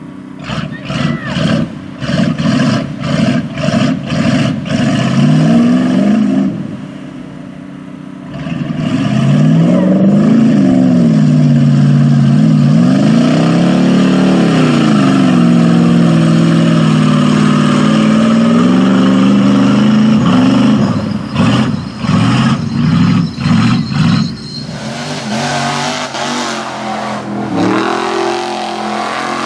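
Lifted Chevy S-10 Blazer mud truck's engine revving hard under load in deep mud. It starts with short stabs of throttle, dies down briefly, then holds a long full-throttle run with the revs swinging up and down, and ends with more throttle bursts. Near the end a second Chevy mud truck's engine takes over.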